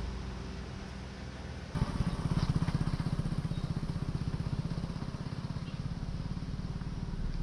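Motorcycle engine running with a rapid low throb, which starts abruptly about two seconds in over a steady low hum of traffic and wind.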